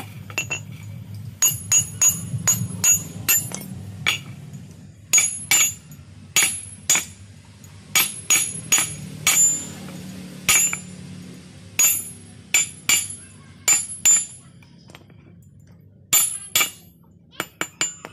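Hammer blows on a 6 mm steel rod and a flat steel bar resting on a wooden plank: sharp metal-on-metal strikes at an irregular pace, often in quick pairs, each ringing briefly at a high pitch. The blows pause for a couple of seconds near the end, then resume.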